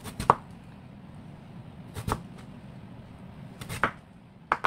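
Kitchen knife cutting through a thick round of Korean radish and striking a bamboo cutting board: four sharp knocks, irregularly spaced, the last two closer together.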